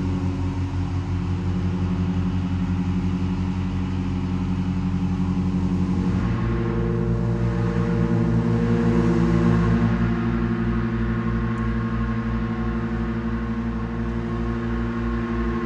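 Pipe organ (Wolff & Associés opus 24) holding low sustained tones that beat against each other in a pulsing throb, with amplified percussion vibrating in sympathy and adding a thin sizzling haze above. About six seconds in, the held pitches shift to a new cluster.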